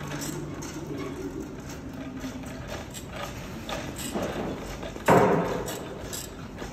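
A pushed luggage cart rattling, its wheels knocking irregularly over the floor as it rolls along with footsteps, with one loud thump about five seconds in that dies away over about half a second.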